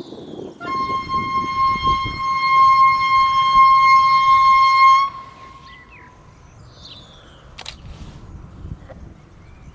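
Horn of an approaching VT98 Uerdingen railbus, one long steady blast of about four and a half seconds that cuts off sharply.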